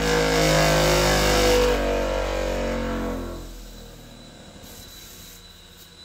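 Band blade sharpener's grinding-wheel motor winding down: a hum whose pitch falls steadily, fading out about three and a half seconds in.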